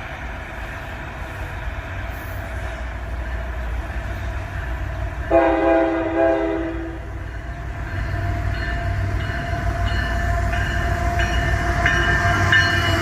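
CSX intermodal freight train's locomotive rumbling past on the near track, sounding its horn once as a chord blast about five seconds in, lasting under two seconds. After it, the rumble of the train swells as the cars roll by, with short high-pitched wheel squeals.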